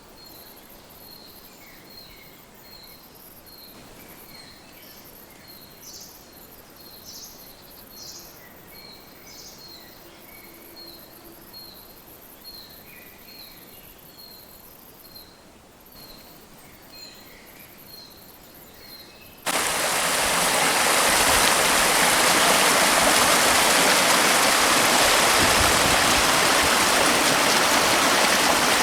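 Quiet spring woodland ambience with a faint, very high pulsing trill, a short high chirp repeated about every half second, and scattered bird calls. About two-thirds of the way in, the sound cuts abruptly to the loud, steady rush of a fast-flowing, swollen spring river.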